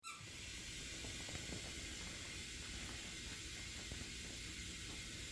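Steady hiss over a low rumble, with a few faint ticks.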